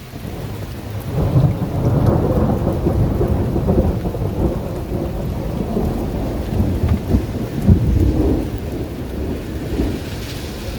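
A long roll of thunder that swells up about a second in and rumbles on, with rain falling steadily.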